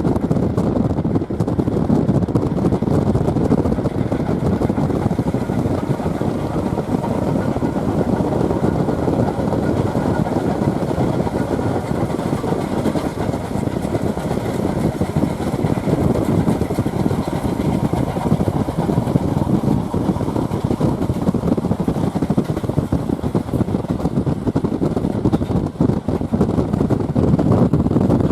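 Steady rushing noise of a vehicle in motion, with wind blowing over the microphone.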